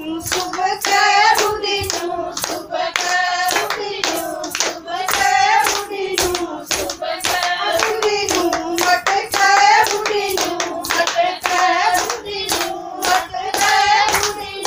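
Women singing a Haryanvi folk song, accompanied by steady rhythmic handclapping.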